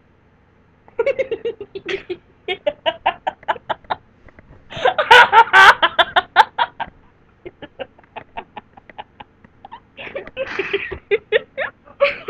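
A boy in a fit of laughter he cannot stop: rapid pulses of laughter, about four a second, starting about a second in, loudest from about five to seven seconds, then easing and picking up again near the end.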